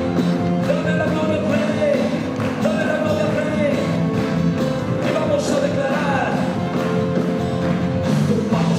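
Live church worship band playing, with electric guitar and held notes under a voice singing a melody.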